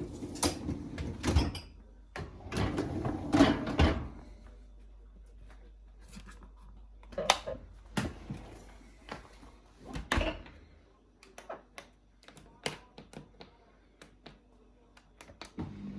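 Knocks and clatter from a Beko dishwasher's racks and the dishes in them being handled. The heavy clatter comes in the first few seconds, then scattered light clicks follow.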